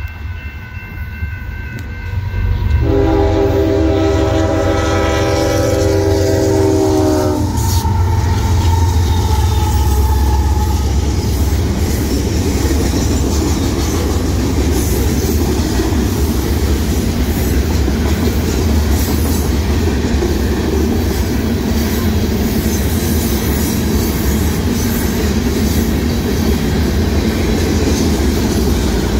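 Crossing bell ringing steadily, then a Union Pacific freight locomotive's air horn sounds one long blast of about four and a half seconds. Its freight cars then roll through the grade crossing with a continuous rumble and clatter of wheels on rail.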